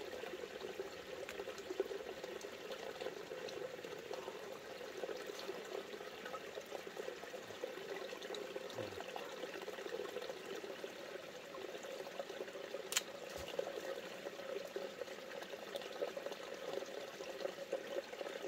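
Creek water running steadily, a continuous rushing hiss, with one sharp click about two-thirds of the way through.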